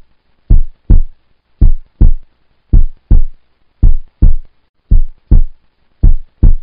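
Heartbeat sound effect ticking off a quiz countdown timer: loud low double thumps, lub-dub, about once a second, six beats in all.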